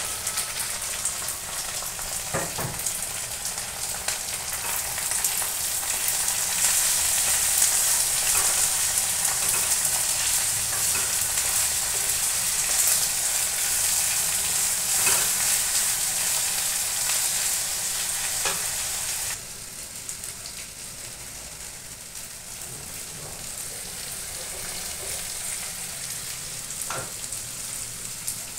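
Diced potatoes and pointed gourd sizzling in hot oil in a non-stick wok, with a few knocks of a wooden spatula stirring them. The sizzle drops abruptly to a quieter level about two-thirds of the way through.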